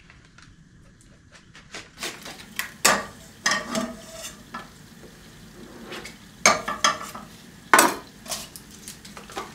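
Butter sizzling in a frying pan while a utensil stirs and scrapes against the pan. The clatter starts about two seconds in, with a few louder knocks against the pan.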